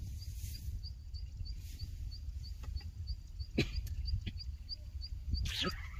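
A bird's short high chirp, repeated evenly about three times a second over a steady low rumble, with a single sharp click a little past halfway.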